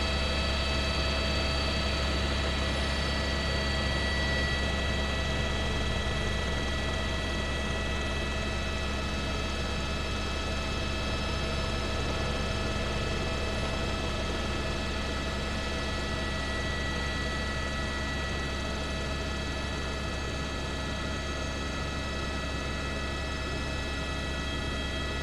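Helicopter in flight heard from inside the cabin: a steady deep rotor drone with a steady high whine over it, unchanging as the helicopter banks.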